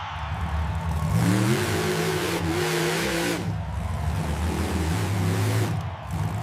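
A motor revving: it climbs in pitch about a second in, holds, then drops back about three and a half seconds in, with a rushing noise over the higher revs, then keeps running at a lower, uneven pitch.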